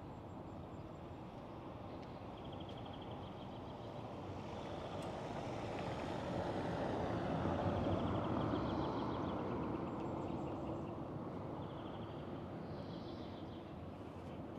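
A vehicle passing on the street, its noise swelling to a peak about halfway through and then fading away. Faint short high chirps come and go over the traffic noise.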